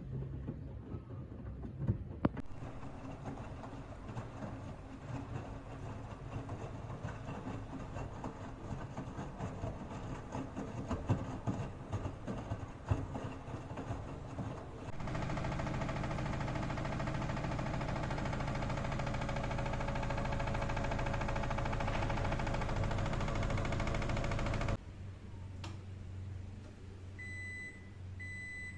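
Front-load washing machine (Toshiba TW-BH85S2N) running: an uneven churning with scattered knocks for about fifteen seconds, then a louder, steady motor hum and whine that cuts off suddenly. A few short high beeps follow near the end.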